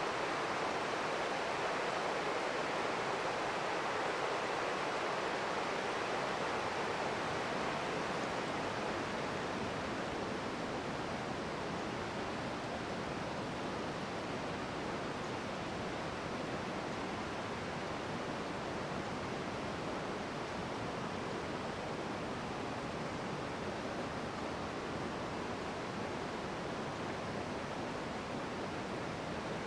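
Steady rush of creek water running over shallow, rocky riffles, a little louder in the first few seconds.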